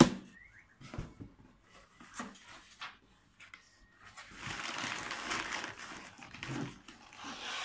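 Cardboard box handled, with a sharp knock at the start and a few scrapes and taps. From about four seconds in, crumpled brown packing paper rustles steadily as hands push it around inside the opened box.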